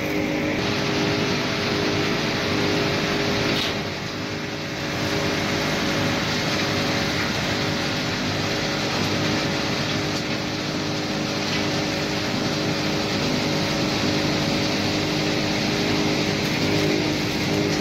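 CRL800 copper wire shredding and granulating line running: a steady machine hum with several held tones from its motors and blower over dense mechanical noise. The level dips briefly about four seconds in.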